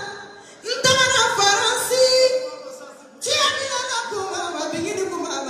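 A woman singing praise unaccompanied through a microphone and loudspeakers in a large hall, in a griot's style: two long phrases of drawn-out, wavering notes that slide down in pitch, the second starting about three seconds in.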